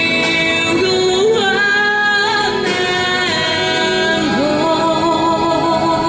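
A woman singing a slow pop ballad into a handheld microphone, holding long notes over backing music.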